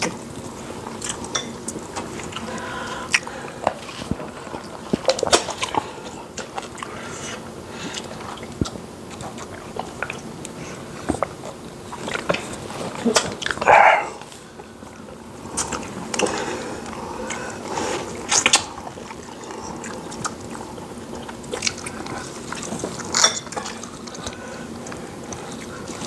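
Close-up eating sounds from two people eating fufu and soup with their hands: chewing, lip smacks and wet mouth clicks. A louder, longer suck, fitting fingers being licked clean, comes about halfway through.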